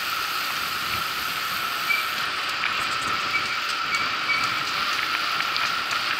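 Steady hiss of tyres on the road and wind while riding a bicycle, with a few faint short high chirps.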